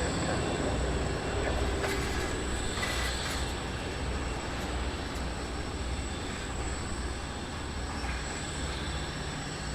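Jet airliner engine noise at an airport: a steady low rumble with a thin, steady high whine above it.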